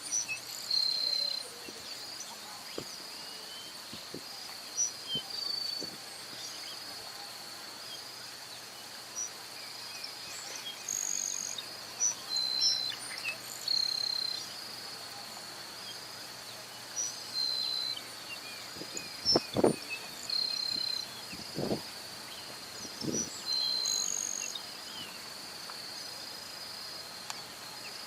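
Steady high-pitched insect chorus with short, thin, high bird notes scattered through it, typical of a grassland sparrow singing in open grassland. A few brief knocks sound about two-thirds of the way in.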